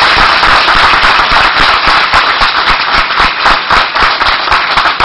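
Audience applauding: a dense, loud patter of many hands clapping, with single sharp claps standing out.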